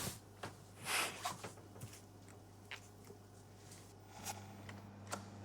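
Quiet room tone with a steady low hum, broken by a few faint clicks and a brief soft rustle about a second in.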